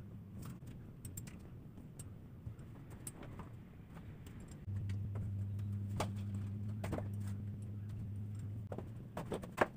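Light clicks and knocks of jars and containers being handled and set down on a kitchen shelf. About five seconds in, a low steady hum starts and runs for about four seconds before stopping.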